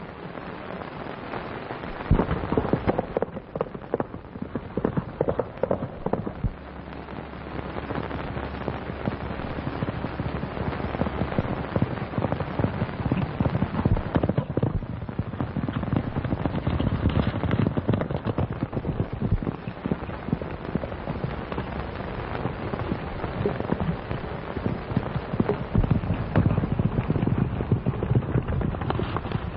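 A horse galloping: a dense, rapid clatter of hoofbeats that starts abruptly about two seconds in and keeps going.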